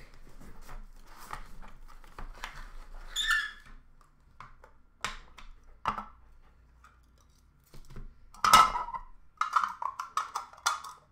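A cardboard trading-card box being opened and emptied by hand: scattered light taps, rustles and scrapes of cardboard, with short squeaks. The loudest sound is a sharp scrape about eight and a half seconds in, followed by a scratchy squeal lasting about a second and a half.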